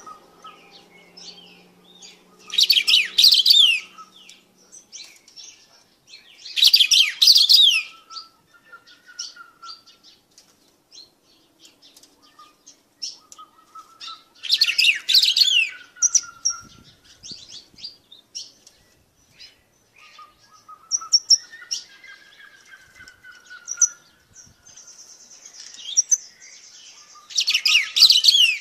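Caged black-throated saltator (batuqueiro) singing: four loud bursts of quick, falling high notes, each about a second and a half long, with soft chips and quiet whistled notes in the gaps between them.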